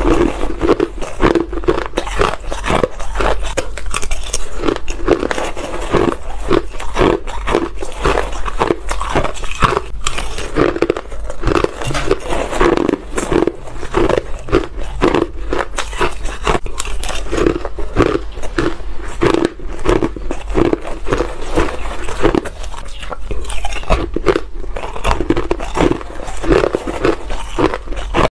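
Close-miked crunching and chewing of a mouthful of shaved ice and ice chunks: a steady, unbroken run of crisp crunches.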